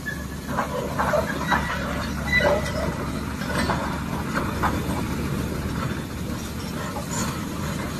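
A tracked excavator's diesel engine running steadily, with scattered short knocks and clinks over it.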